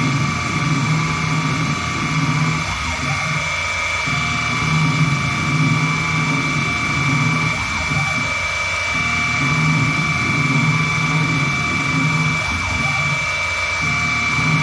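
CNC milling machine spindle running with a steady high whine while an end mill cuts the valve-sleeve seats into an OS FS-40s model-engine cylinder head. The lower cutting sound comes in stretches of a few seconds, with short breaks about four and nine seconds in.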